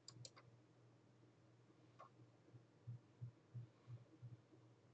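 Near silence with a faint low hum; two quiet computer-mouse clicks just at the start and a softer click about two seconds in.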